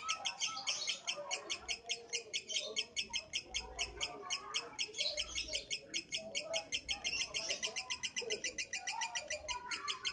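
Lovebird singing a long, unbroken rapid chatter of high chirps, about eight notes a second.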